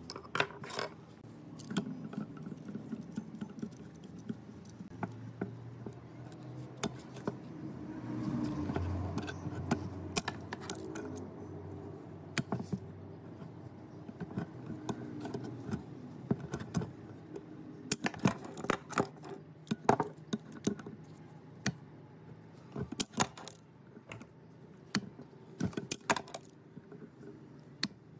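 Metal parts of an old rusty hand drill clinking and tapping as they are handled, in irregular clusters of sharp clicks. Underneath is a low steady hum that swells briefly about eight seconds in.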